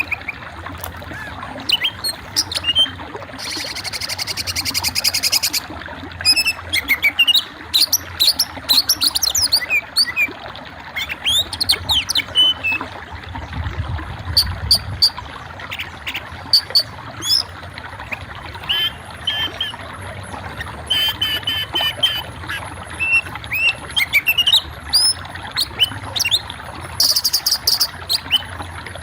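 Songbird chirping and singing: a steady run of short whistled notes sliding up and down, broken by a rapid buzzy trill about four seconds in and again near the end.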